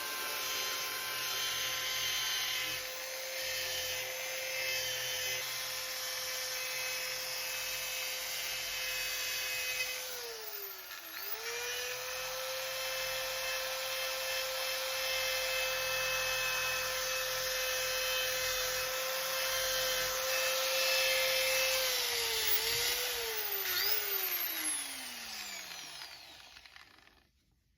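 Handheld electric power tool running with a steady whine while taking rust off a chrome-plated exhaust pipe. About ten seconds in it dips in pitch under load and comes back up, and near the end it winds down with falling pitch.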